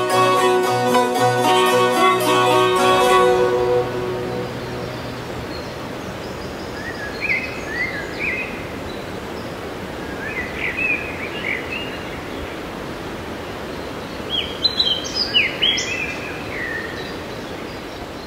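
A Norwegian folk tune played on langeleik, a droned zither, ends about three seconds in. Then comes a steady outdoor rush with a songbird singing short chirping phrases three times, loudest near the end.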